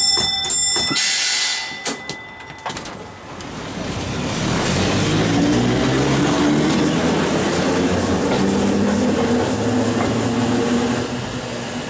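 Vintage electric streetcar running along its track, a steady rumble of wheels on rail with a low motor hum that drifts in pitch. It opens with a brief ringing tone and a short burst of hiss before the running noise swells up about three seconds in.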